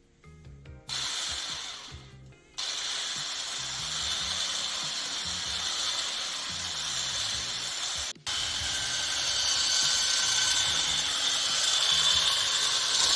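Electric hand mixer beating chocolate buttercream frosting in a bowl. It starts about a second in, fades and stops briefly, then runs steadily, with one very short cut about two thirds of the way through.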